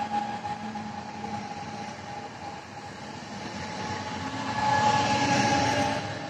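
Pesa Elf 2 electric multiple unit moving past, with a steady electric whine over wheel and running noise. It grows louder between about four and six seconds in as the last car passes, then drops away.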